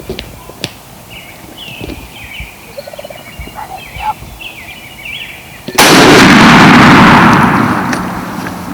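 A single loud shotgun blast about six seconds in, fired at a gobbler, that dies away over a couple of seconds. Before it, faint bird calls.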